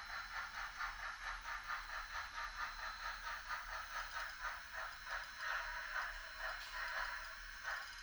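Motor-driven HOn3 model railroad turntable bridge rotating, giving a rapid, even clicking rattle of about five clicks a second that stops abruptly near the end as the bridge comes to rest.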